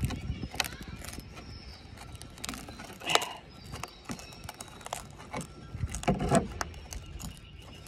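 Knife blade scraping and clicking against a large clam's shell as it is pried at to open it: scattered small clicks and scrapes, the loudest about three seconds in.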